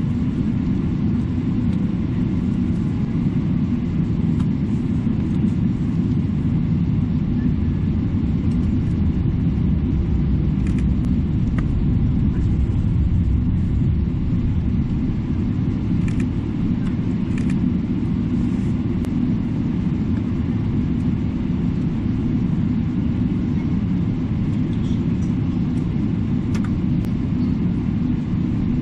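Jet airliner taxiing, heard inside the cabin: a steady low rumble of the engines and rolling gear.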